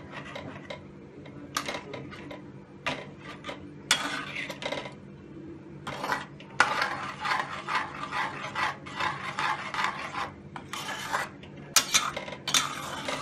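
Slotted metal spatula scraping and stirring around the bottom and sides of a metal pot of thick yogurt-based masala gravy, in many irregular strokes, with a steady low hum underneath. The yogurt is being stirred continuously until it boils so that it does not split.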